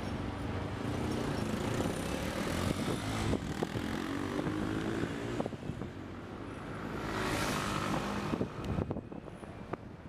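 Street traffic: a motor vehicle engine running, its pitch shifting a few seconds in, and a vehicle passing with a swelling hiss about seven seconds in, with a few sharp clicks and knocks.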